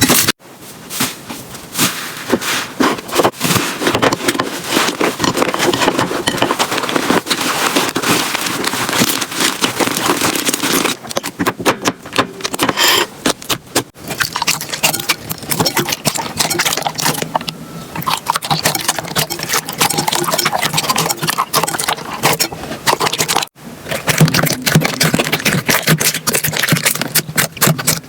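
Slime being squeezed, pressed and stretched by hand, a dense run of crackling, popping and sticky clicks. The texture changes abruptly a few times as one slime clip cuts to the next.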